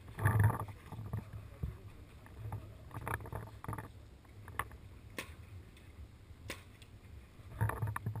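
A few scattered sharp pops of paintball markers firing, a second or more apart, over bumps and rustling of the player's gear close to the microphone.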